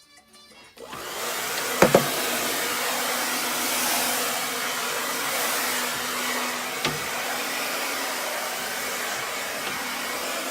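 Vacuum cleaner switched on about a second in and running steadily, with two short knocks as it bumps against something.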